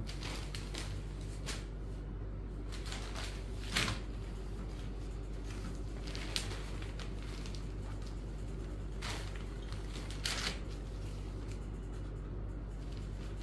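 Cotton sarees rustling and swishing as they are unfolded, lifted and smoothed flat on a wooden table, in short brushes of sound, the loudest about four seconds in and again near ten seconds. A steady low hum runs underneath.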